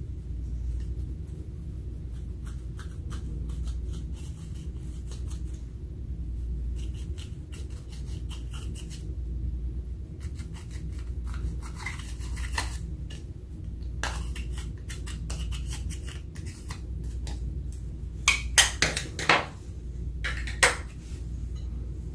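Small irregular scraping and clicking from a utensil working makeup and slime in a container, with a few sharper, louder clicks near the end, over a steady low hum.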